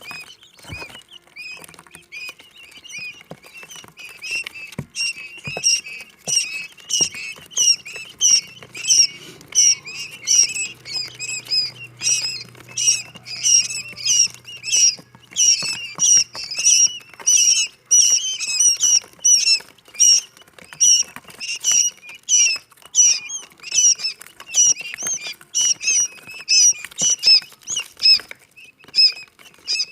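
A group of quail chicks peeping: many short, high-pitched cheeps overlapping, several a second, without a break.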